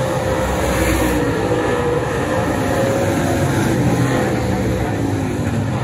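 Street stock race car engine running hard on track, a dense steady drone whose pitch rises and falls slightly.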